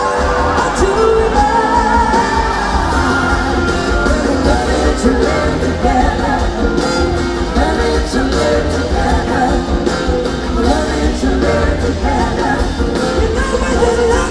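Live rock band playing, with a woman singing lead over electric guitar, drums and bass.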